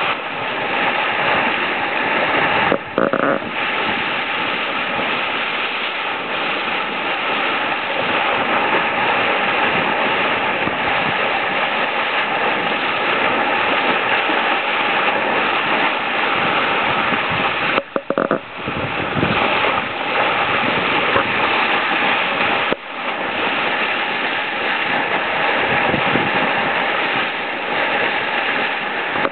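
Water rushing and splashing along the hull of a Kracer sailboat sailing fast, a loud, steady hiss of spray and bow wave. The sound drops out briefly three times.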